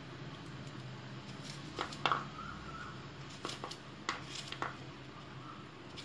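Kitchen knife cutting peeled bottle gourd into small pieces on a plastic cutting board: a scattering of short knocks of the blade through the gourd onto the board, clustered in the middle, over a faint low hum.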